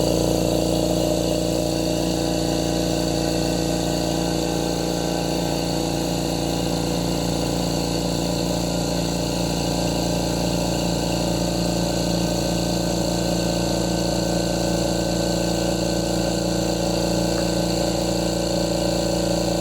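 Mitsushi XH30L 600 W diaphragm-type air compressor running steadily, filling its empty 30-litre tank, a constant hum with several steady tones.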